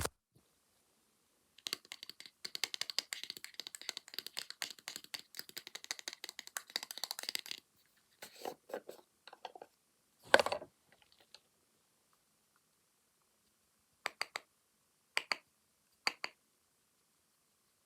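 Fast ASMR tapping and scratching on a camera lens: a dense run of quick clicks and scrapes for about six seconds, then scattered taps, one louder knock about ten seconds in, and three short taps near the end.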